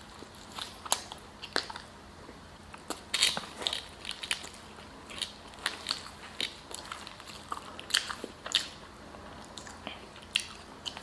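Close-miked chewing of a mouthful of gyro and crinkle-cut fries: irregular wet mouth clicks and soft crunches, several a second.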